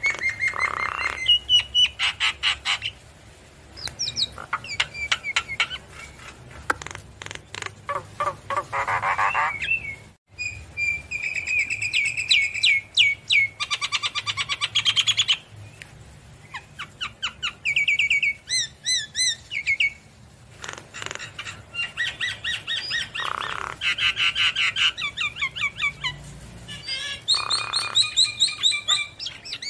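Javan myna (jalak kebo) singing a long, varied song of rapid repeated notes, whistles and chattering trills, in phrases broken by short pauses.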